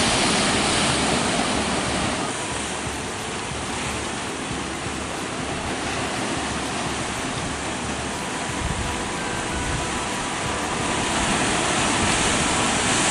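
Ocean surf breaking on the shore, a steady rush of noise that swells slightly and cuts off suddenly near the end.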